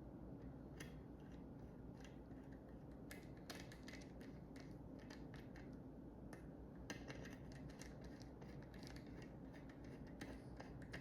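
Faint, scattered small clicks and scrapes of hands working small parts of a sewing-machine speed controller's wiring, over a steady low room hum.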